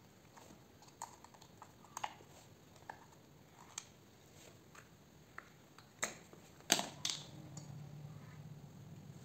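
Small metal clicks and taps from hands handling parts on a chainsaw's engine, roughly one a second, the loudest two close together about seven seconds in. A faint low hum starts just after them.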